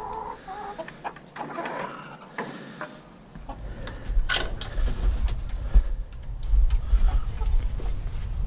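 Chickens clucking in the first second, then scattered clicks and knocks as the latch of a wire-mesh coop door is worked. A low rumbling noise on the microphone comes in about three and a half seconds in and is the loudest thing from then on.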